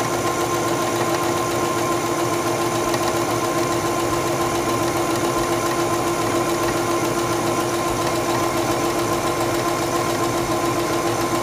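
Singer Stylist 7258 computerized sewing machine sewing a serpentine stitch at its default settings, its motor and needle running at a steady speed.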